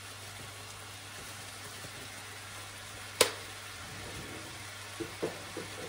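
Chicken pieces frying in a pan with a soft, steady sizzle. About three seconds in there is one sharp click, and a few light knocks near the end.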